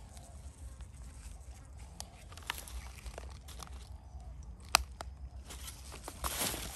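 Gloved hands rummaging through a rubbish heap: plastic bags and litter rustling and crinkling, with scattered light clicks and knocks. One sharp click comes about two-thirds of the way in, and a burst of rustling near the end.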